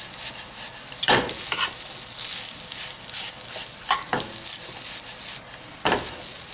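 Fried rice with egg and shrimp sizzling in a hot frying pan while a metal ladle stirs and turns it. The ladle scrapes and knocks against the pan several times, about a second in, around four seconds and near six seconds.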